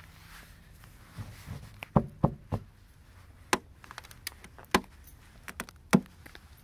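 A gloved hand knocking and snapping icicles off an ice-glazed edge: a run of sharp, separate cracks and softer taps, about six strong ones, stopping shortly before the end.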